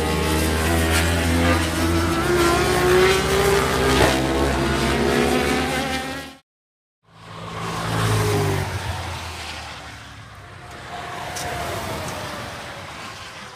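Several racing motorcycle engines running at high revs as the bikes pass, their pitch sweeping up and down. The sound cuts out abruptly about six seconds in, then comes back with a single vehicle's engine passing and fading away.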